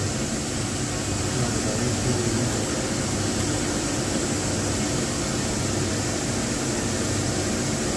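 Steady mechanical hum with an even hiss: workshop machinery running.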